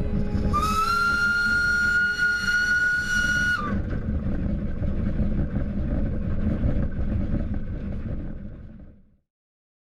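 Steam locomotive whistle sounding one long steady note for about three seconds over the low rumble of the running train; the train sound then fades away near the end.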